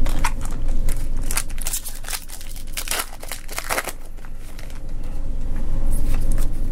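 Foil booster-pack wrapper crinkling and tearing open, with a dense run of sharp crackles through the middle.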